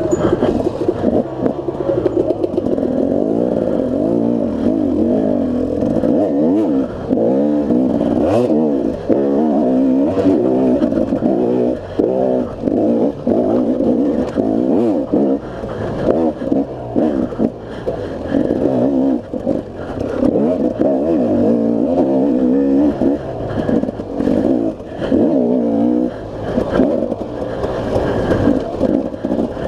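KTM two-stroke enduro dirt bike engine revving up and down continually under load, its pitch rising and falling with every throttle change, with occasional clattering knocks from the bike over rough ground.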